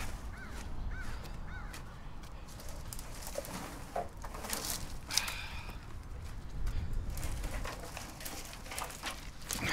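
Dry brush and twigs rustling, scraping and crackling as armfuls of cut branches are gathered by hand, in several noisy bursts.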